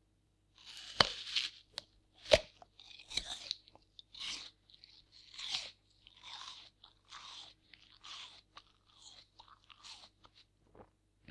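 A person biting into a crisp, fresh apple and chewing it. There are two sharp, loud bites about one and two and a half seconds in, followed by a steady run of crunching chews, roughly one every three quarters of a second, growing softer near the end.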